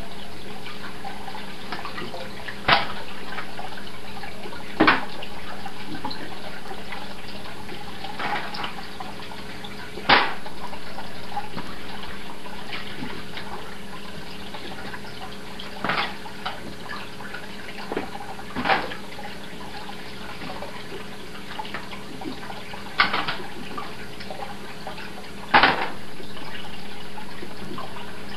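Home aquarium's water running steadily, with a faint hum underneath and a sharp drip-like plink every few seconds, eight in all at irregular gaps.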